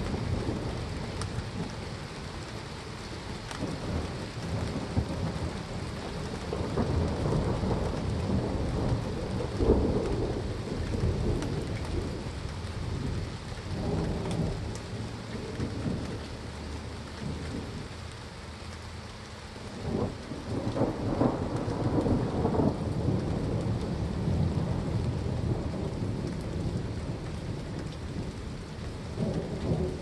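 Steady rain with rolling thunder, the low rumble swelling louder about ten seconds in and again around twenty seconds.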